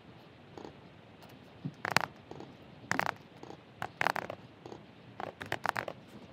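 Typing on a computer keyboard: several short bursts of quick key clicks with pauses between them.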